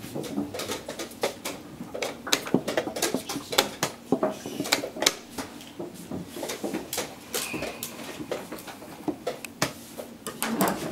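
Wooden chess pieces set down on boards and chess clock buttons pressed, at several boards at once: many irregular clicks and knocks, close together.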